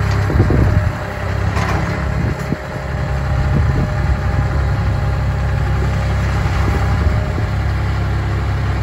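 Vermeer CTX100 stand-on mini track loader's engine running steadily as the machine climbs steel ramps onto a trailer bed, with a few clanks in the first four seconds.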